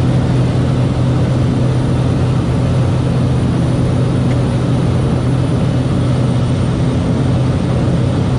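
Cessna 208B Caravan's single Pratt & Whitney PT6A turboprop and propeller running steadily, heard inside the cockpit as a constant loud drone with a strong low hum.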